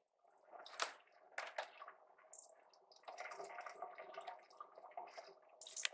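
Faint trickling, splashing water with a few light knocks in the first couple of seconds.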